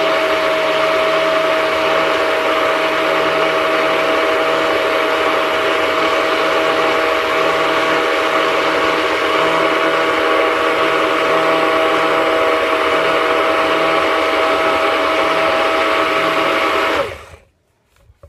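Stick blender running steadily with an even whine, immersed in liquid soap batter of coconut and olive oils with lye, mixing it to emulsification. About a second before the end it is switched off and the motor cuts out abruptly.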